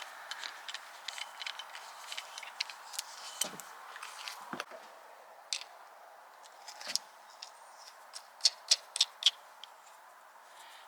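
Small clicks and taps of hands handling a shock pump and bike parts, with a couple of dull knocks and then a quick run of about six sharp clicks near the end.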